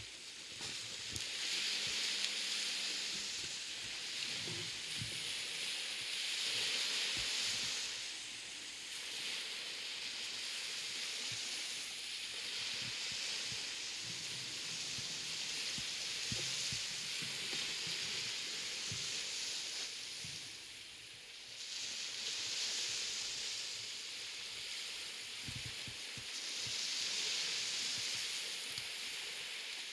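Small waves washing up a sandy shore: a steady hiss that swells and fades every several seconds.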